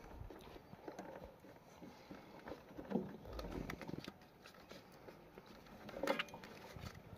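Faint handling noise as insulated wires are moved and laid into a car amplifier's terminals: soft rustling with scattered light taps and clicks, the loudest about three seconds in and again about six seconds in.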